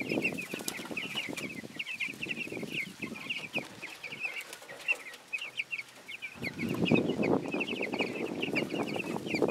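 A flock of young broiler chicks peeping constantly in many short, high chirps. About six seconds in, a louder rough, rustling noise joins them.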